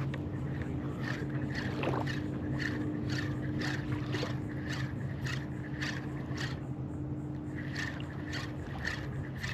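Footsteps crunching at a steady walking pace, about two a second, over a steady low engine-like hum.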